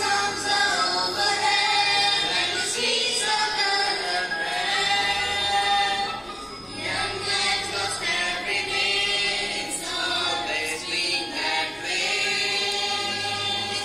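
A choir of voices singing a song together, with musical accompaniment.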